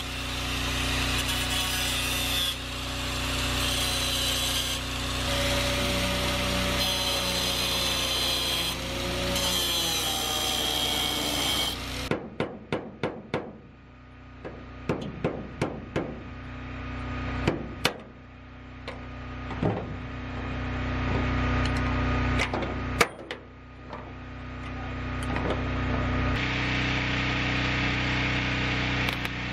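Angle grinder grinding on a rusted truck-bed bolt for about twelve seconds, its pitch wavering under load. Then comes a run of sharp metal clicks and knocks over a steady low hum.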